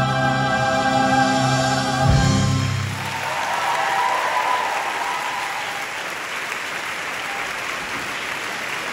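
Choir and solo singer holding the final chord of a musical-theatre number over the backing, cut off with a last accent about two seconds in. An audience then applauds.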